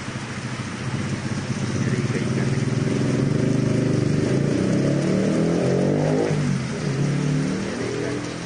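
A motor vehicle engine, growing louder and changing pitch over a few seconds, then dropping away about six seconds in, with a shorter, weaker rise near the end.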